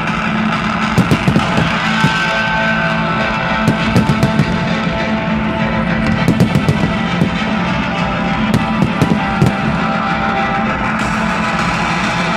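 Loud rock music with electric guitar playing for a fireworks show, with clusters of sharp firework bangs and crackles cutting through it at intervals.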